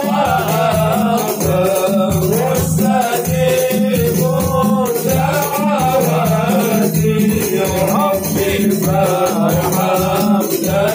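Men singing an Arabic sholawat praise song together into microphones, over a steady rhythm of percussion with a rattling, shaker-like sound.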